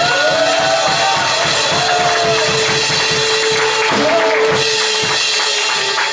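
Canopus drum kit played live, a busy run of kick, snare and cymbal strokes, along with accompanying music that carries a melody line.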